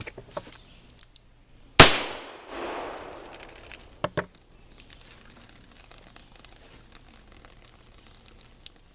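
A single shot from a black-powder cap-and-ball revolver about two seconds in, its report trailing off over a second or so, with a few sharp clicks before and after it.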